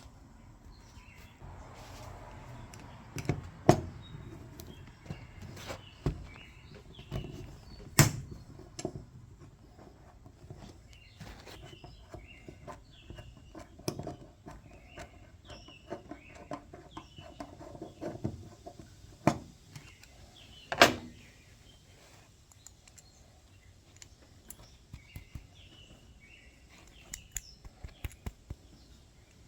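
Scattered sharp clicks and knocks of hand tools and small engine parts being handled during work on a pressure washer engine, the loudest knocks about 4, 8 and 21 seconds in. Birds chirp faintly in the background.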